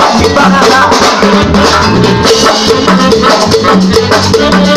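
Mexican banda playing live: a repeating deep bass line and drums keep a steady beat.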